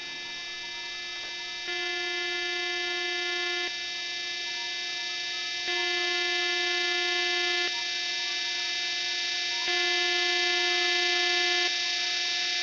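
Electronic drone music: sustained synthesized tones alternating between two chords, switching about every two seconds.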